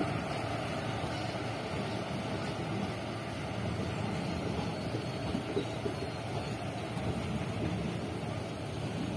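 Indian Railways passenger coaches rolling past as an express train pulls out of the station: a steady rumble of wheels on the rails.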